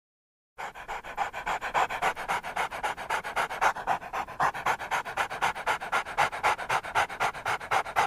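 Dog panting quickly and steadily, about five breaths a second, starting abruptly about half a second in.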